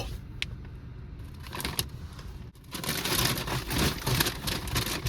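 A potato chip bag being handled, with a few sharp crinkles at first and then dense crinkling and crackling from a little under three seconds in.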